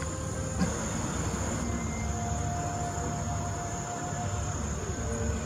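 Boeing 737-700's CFM56 jet engines giving a steady low rumble as the airliner rolls out on the runway after touchdown.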